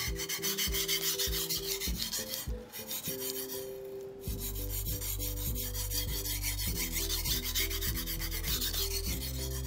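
A Japanese sashimi knife (yanagiba) is stroked back and forth by hand on a green whetstone, steel scraping on stone in repeated strokes as the front double bevel is ground in.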